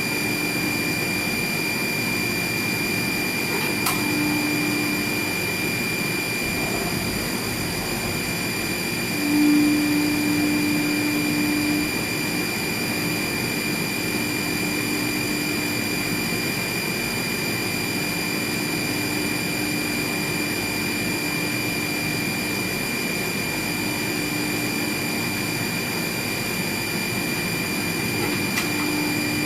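CNC milling machine running steadily while machining holes into an ABS plastic enclosure, with a constant high spindle whine over machine noise. A lower hum comes and goes as it cuts, loudest about nine to twelve seconds in.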